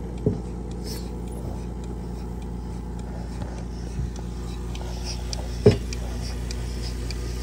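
Vevor electric milking machine's vacuum pump running with a steady hum while the teat cups are held onto a cow's teats. A few sharp knocks sound over it, the loudest about two thirds of the way through.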